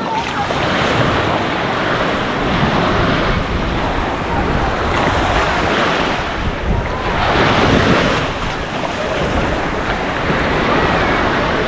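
Small waves breaking and washing up on a sandy beach, swelling and ebbing, with one louder surge about two-thirds of the way through. Wind buffets the microphone.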